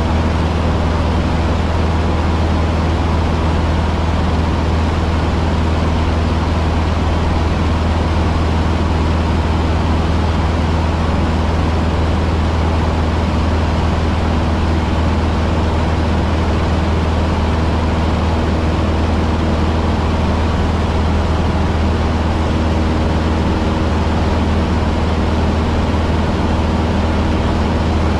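Cessna 150's four-cylinder Continental O-200 engine and propeller droning steadily in flight, heard from inside the small cabin, with a strong low hum and no change in power.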